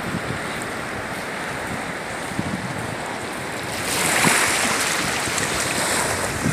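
Small waves washing onto the sand at low tide, mixed with wind, as a steady rushing noise that swells louder about four seconds in.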